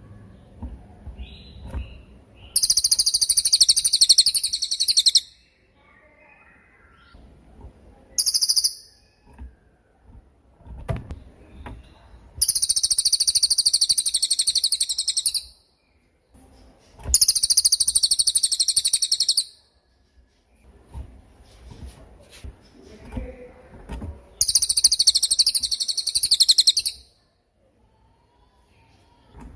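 Cililin songbird singing long, very high, rapid trills of two to three seconds each, four of them with pauses between, plus one short burst of the same trill about eight seconds in.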